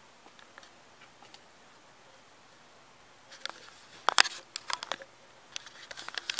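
Sharp clicks and knocks of a door and of the camera being handled, starting about three seconds in and loudest just after four seconds, with a few more short clicks near the end; only faint scattered ticks before that.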